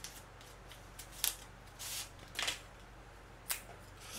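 Plastic wrapper of disposable cutlery being torn open and handled: four short crinkling rustles and sharp clicks, one about every second.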